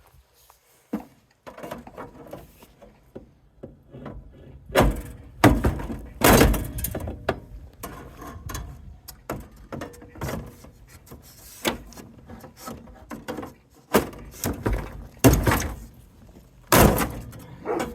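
Irregular metal bangs and clanks from dismantling a soda vending machine's sheet-metal internals, with several loud strikes in the middle and later part and lighter knocks and rattles between them.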